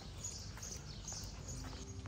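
Outdoor ambience: a low rumble under a quick run of short, high chirps, about four a second. Soft music comes in near the end.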